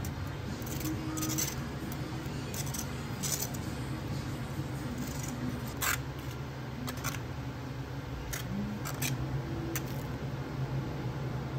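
Scattered light clicks and clinks of small hard objects being handled, over a steady low hum of cafe equipment.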